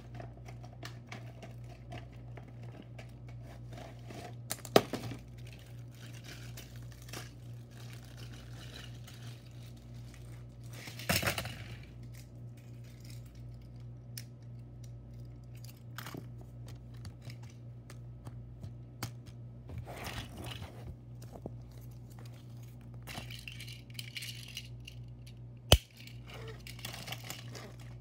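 Toy train packaging being handled and pulled apart: rustling, tearing and crinkling of cardboard and plastic with many small clicks, over a steady low hum. Sharp knocks come about five seconds in, around eleven seconds and near the end.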